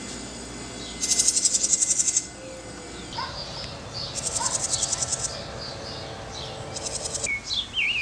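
Birds singing: high, buzzy trills about a second long, repeated every few seconds, with short chirps between and quick falling calls near the end.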